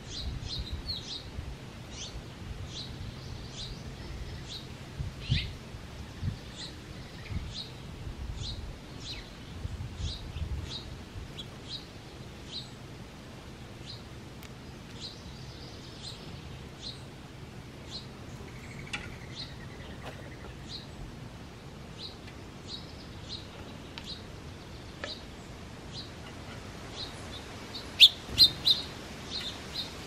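A small songbird chirping over and over, short single chirps at about two a second, with a few louder, closer chirps near the end.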